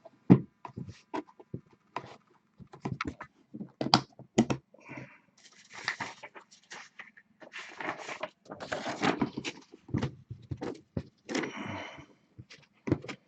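Hands opening trading card packaging: irregular clicks and taps, with several bursts of crinkling and tearing of wrapper or packaging.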